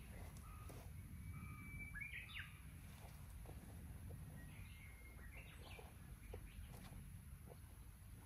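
Small birds whistling and chirping faintly, in short notes and twittering bursts, over a steady low rumble of outdoor background noise.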